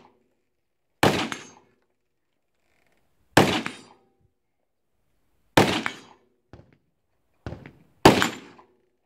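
Four loud gunshots from a competitor's firearm, spaced about two seconds apart, each followed by a short echo off the range. Two fainter sharp cracks fall between the third and fourth shots.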